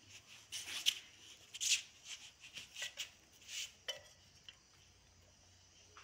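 A baby sucking and chewing on a slice of guava: a run of soft, wet mouth smacks in the first four seconds, then quiet.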